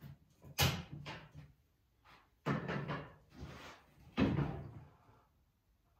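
Three loud bangs about two seconds apart, each followed by a few lighter knocks, like hard objects being knocked or set down in a workshop.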